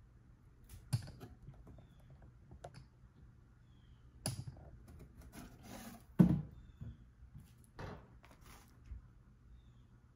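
Handling of an opened cardboard mailer box and its contents: scattered rustling of cardboard and shredded paper fill with sharp clicks and knocks, the loudest about six seconds in.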